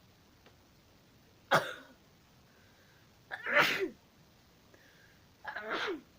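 A person sneezing three times, about two seconds apart, the sneezes set off by a nasal swab in the nose.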